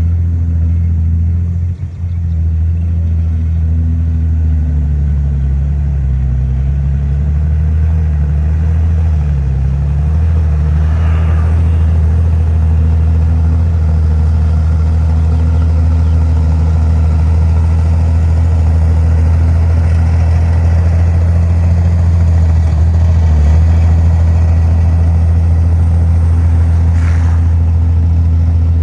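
Heavy diesel engine of earthmoving machinery running steadily and loud, its pitch wavering a little early on as it works. Faint metallic clanks come about 11 seconds in and again near the end.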